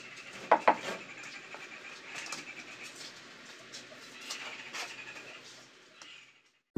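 Rubber mallet knocking on a freshly laid ceramic wall tile: two sharp knocks close together about half a second in, then lighter knocks. A bird chirps high and thin underneath. The sound drops away shortly before the end.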